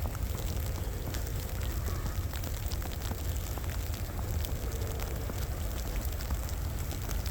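Footsteps in wet snow and slush, a fine irregular crackling, over a steady low rumble.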